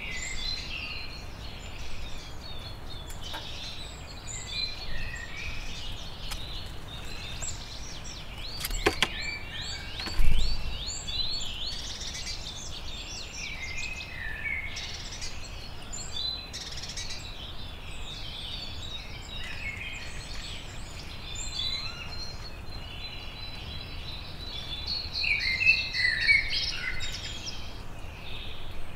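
Wild songbirds singing and chirping steadily, several birds overlapping. About nine seconds in come a few sharp taps, followed by a loud dull thump.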